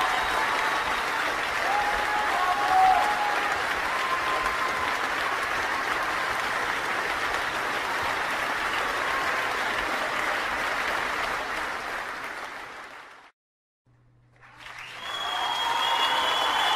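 Applause from a crowd, a steady dense clapping that fades out about thirteen seconds in. After a brief silence, a similar applause sound fades back in near the end.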